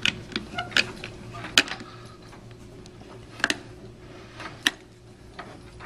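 Irregular sharp plastic clicks and clacks as a one-handed Quick-Grip bar clamp is squeezed tight onto a plastic pump housing, pressing its air chamber and liquid chamber together. About half a dozen clicks over a few seconds, spaced unevenly.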